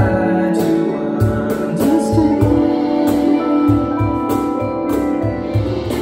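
A live band plays R&B/soul: an electric guitar and a Yamaha keyboard hold chords over a steady low beat, with a voice singing at times.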